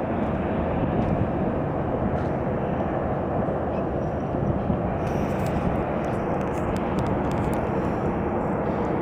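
Jet aircraft engines running steadily: an even, unbroken wash of engine noise with no change in pitch.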